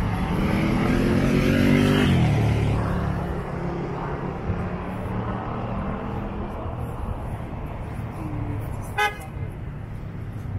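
Street traffic: a vehicle engine revs up with its pitch rising for about two seconds, then drops away into a steady traffic rumble. A short car-horn toot sounds near the end.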